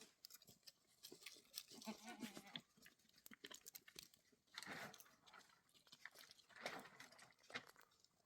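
Faint goat or sheep sounds: one short quavering bleat about two seconds in, with soft rustling and crunching, like animals chewing and moving about.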